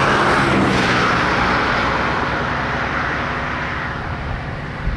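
Road vehicle noise: a rush of tyres and engine, loudest at the start and fading away over about four seconds.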